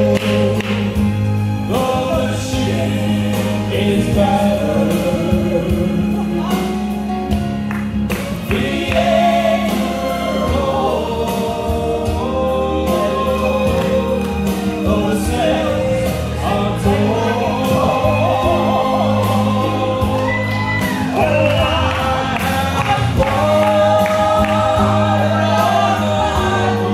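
A man and a woman singing a gospel song as a duet through handheld microphones, over steady musical accompaniment.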